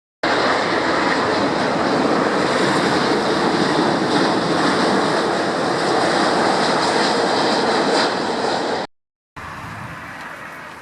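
Loud, steady roar of a jet airliner's engines passing close by. It cuts off abruptly near the end and is followed by a quieter, fading stretch of the same kind of noise.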